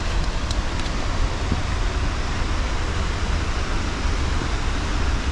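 Steady rushing noise of Godafoss waterfall close by, with wind rumbling on the microphone.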